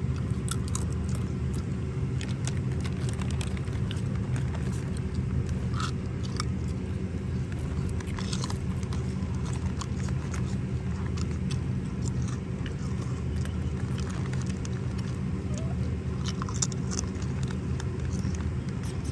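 A baby macaque chewing and crunching snack chips, with scattered small crisp clicks. A steady low hum runs underneath.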